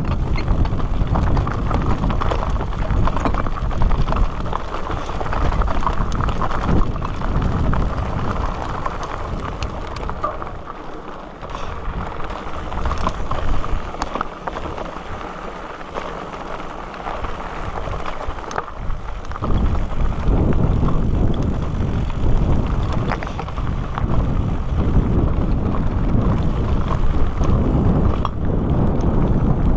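Mountain bike riding over a rocky trail: tyres crunching over loose stones and the bike rattling, with wind buffeting the microphone. It quietens for several seconds from about ten seconds in, then picks up again.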